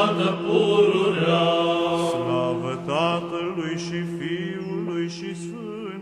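Orthodox church chant in Romanian: voices sing a drawn-out melodic line over a steady held drone note, slowly fading.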